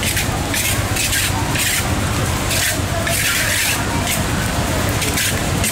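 Grains being stirred and scraped around a hot iron roasting pan on a bhathi, a rhythmic rattling swish about twice a second over a steady low rumble.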